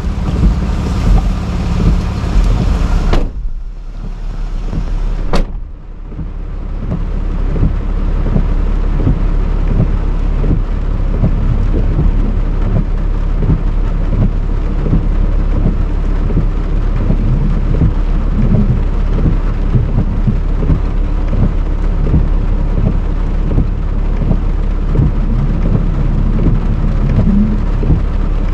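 Heavy rain drumming on a car's roof and windshield, heard from inside the cabin with the windshield wipers running. For the first three seconds it is brighter and hissier, then it turns muffled, with a sharp click about five seconds in.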